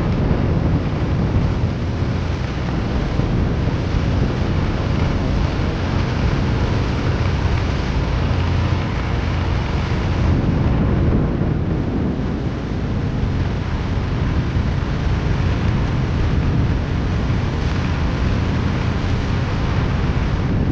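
Wind buffeting the microphone in a steady, heavy rumble, with tractor engine noise beneath it.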